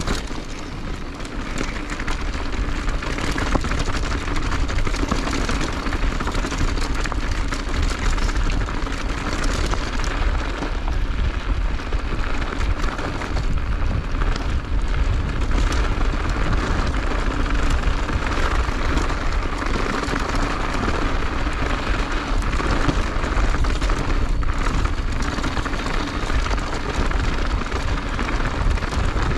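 Skis hissing and scraping over snow on a downhill run, under steady wind rushing and buffeting on the microphone.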